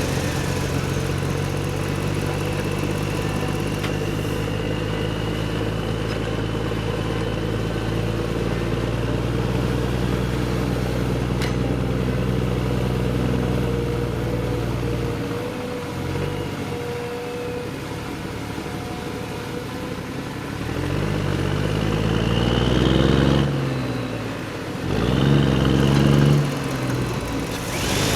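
Engine running steadily for about fifteen seconds, then dropping away and revving up twice near the end, with a faint high whine over it.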